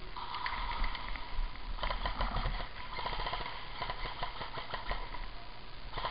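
Airsoft electric guns firing on full auto: several rapid rattling bursts of shots, the longest lasting about two seconds.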